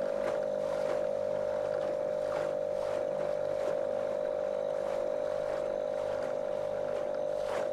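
Small motorboat's outboard motor running at a steady pitch, with water splashing against the hull.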